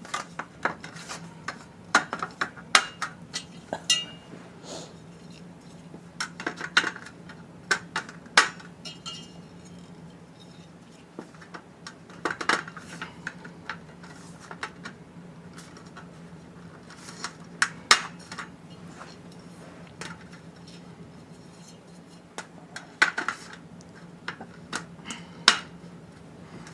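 Metal drawer slides of an IKEA Helmer cabinet being pressed into the slots of its sheet-steel side panel and snapping in: clusters of sharp metallic clicks and clinks every few seconds. A faint steady hum runs underneath.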